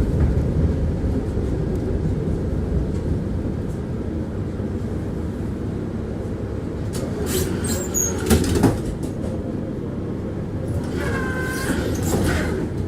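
Tram running along its track, heard from inside the car: a steady low rumble of wheels on rail, with a short cluster of clattering knocks about eight seconds in and a brief high whine near the end.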